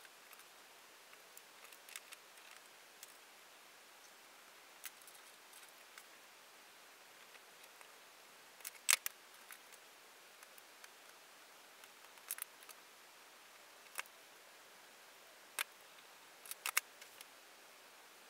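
Scattered light metallic clicks and taps as small screws, an Allen key and an aluminium part are handled, screwed together and set down on a cutting mat. The loudest is a sharp double click about nine seconds in, with a few more near the end.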